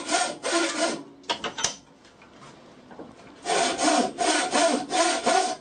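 Wooden frame saw with a narrow steel blade cutting very hard wood in quick back-and-forth strokes, each stroke rasping with a steady ringing note from the blade. The strokes stop for about two seconds after the first second, with a few light knocks, then pick up again. The blade barely bites into the hard wood, so many of the strokes are wasted.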